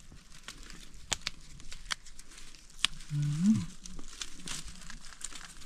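Scattered crackles and rustles of dry leaf litter and twigs, irregular and light, as wild mushrooms are picked. About halfway through, a short low vocal hum rises and falls once.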